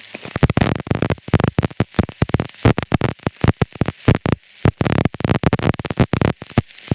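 Stick-welding arc burning a 6013 electrode in a horizontal fillet joint: a dense, irregular crackle of sharp pops.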